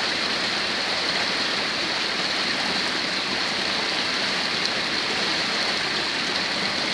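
Heavy rain and rainwater runoff flowing over a flooded dirt street, a steady even rush of water.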